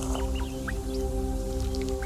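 Soft background music holding steady sustained chords, with faint short high chirps scattered over it.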